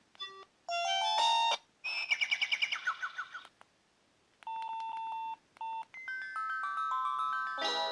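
Samsung C100 mobile phone playing short preloaded electronic ringtones and alert tones one after another. First a brief chime, then a quick run of notes falling in pitch. After a pause comes a steady beep, repeated once briefly, then a stepping melodic phrase, and another tune starts near the end.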